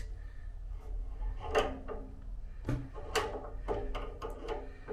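A handful of short metallic clicks and knocks as an adjustable spanner and a pipe wrench are shifted and tightened on a radiator valve's compression fittings, most of them in the second half.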